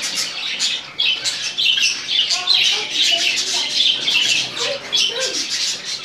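Budgerigars chattering and warbling: a fast, unbroken stream of short squawks and chirps, with a few lower warbled notes.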